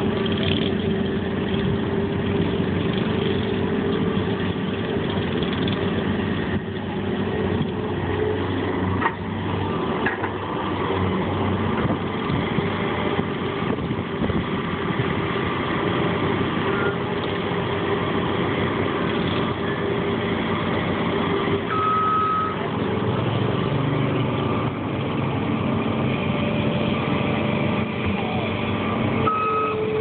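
Case skid steer loader's diesel engine running steadily as the machine maneuvers. Two short high beeps sound, one a little past the middle and one near the end.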